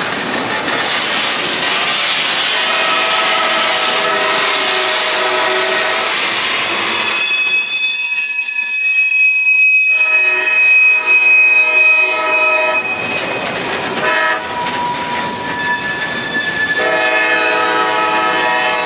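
Loaded freight cars rolling past close by, wheels rumbling on the rail. From about seven seconds in, the steel wheels squeal against the rail in high, steady tones that fade and return in waves.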